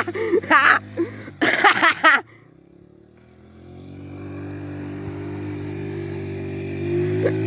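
Small four-wheeler's engine running at a steady pitch, faint at first and growing steadily louder from about three seconds in. Before it, a burst of loud voice cuts off abruptly about two seconds in.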